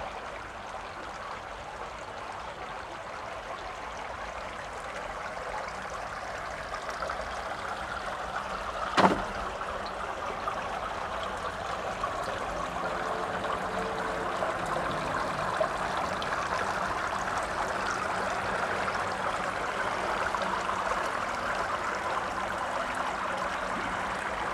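Steady rush of running water at a swimming pool, growing slowly louder, with a single sharp knock about nine seconds in.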